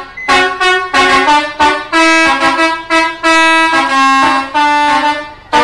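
Indonesian bus 'telolet' multi-tone musical air horn playing a quick tune of short notes, several horn tones sounding together as chords and changing pitch about twice a second.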